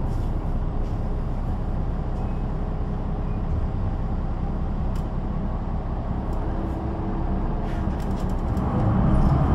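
Engine and ZF automatic gearbox of a 2005 Solaris Urbino 12 III city bus running steadily, with the revs climbing and the sound growing louder near the end.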